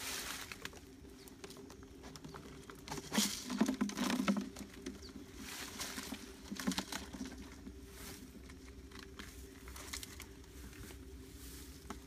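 Rustling, crinkling and knocking of a plastic bottle with trapped birds inside as it is handled and pulled off a PVC-pipe bird trap. The loudest clatter comes about three to four and a half seconds in, with a shorter one around six and a half seconds.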